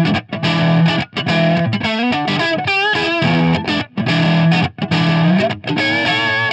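Distorted electric guitar, a Fender Stratocaster, played through a tube amp and speaker cabinet and recorded close up with a Shure SM57 dynamic microphone. It plays a riff of held, chugging notes broken by short stops, with a lick of bent, vibrato notes in the middle.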